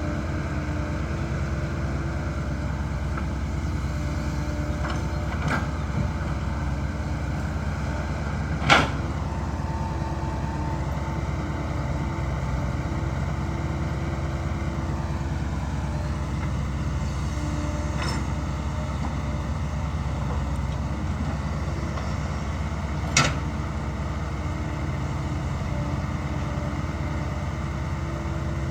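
Dump truck's diesel engine running steadily, its pitch shifting for a few seconds midway. A few sharp knocks sound over it, the loudest about nine seconds in.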